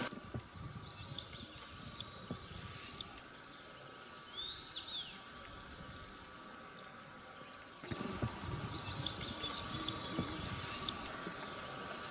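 Small songbirds singing: short high chirping phrases, each a quick trill with a clear note, repeated about once a second over a faint steady outdoor hiss.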